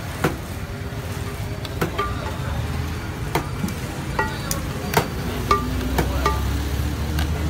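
A plate knocking and scraping against the inside of a large aluminium rice pot as rice is scooped out. There are about a dozen sharp clinks, some with a brief metallic ring, over a steady low rumble.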